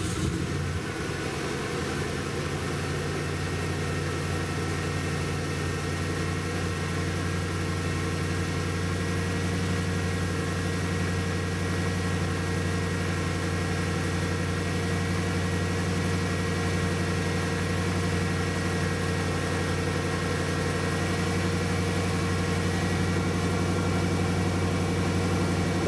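Ford F-150's 302 Windsor 5.0-litre V8 idling steadily.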